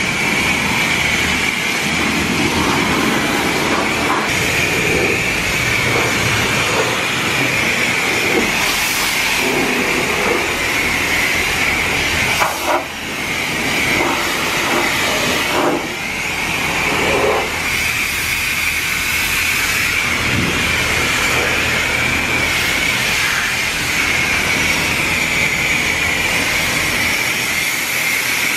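High-pressure wand at a self-serve car wash spraying water onto a car's body: a loud, steady hiss that dips briefly a couple of times around the middle.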